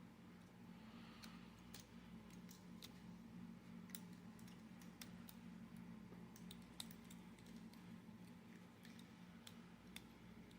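Faint, irregular ticks of lock picks working the pin stacks of padlocks under tension, over a low steady hum.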